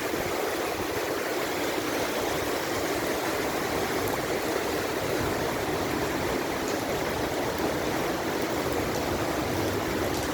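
Heavy rain pouring down with rushing water, a steady, even hiss that does not let up.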